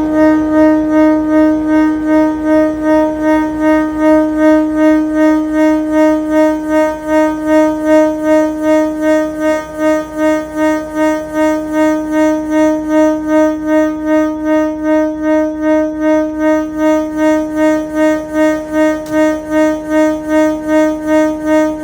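Diesel locomotive giving a loud, steady singing tone at one fixed pitch, pulsing about three times a second and held without a break.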